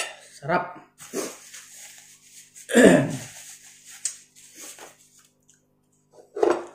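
A man's sniffing and breathy exhales while eating very spicy ramen, with one loud throaty burst about three seconds in, as the heat makes his nose run.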